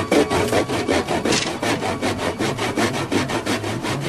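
Hand saw cutting through wood in quick, regular back-and-forth strokes.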